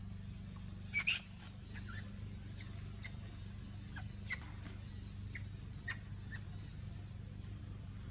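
Baby macaque giving short, high distress squeaks. There are about eight of them, scattered and irregular, and the loudest pair comes about a second in.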